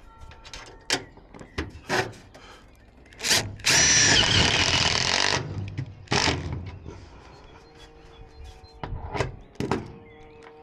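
A power drill running in one steady burst of about a second and a half, with a high whine. Sharp knocks and clicks come before and after it.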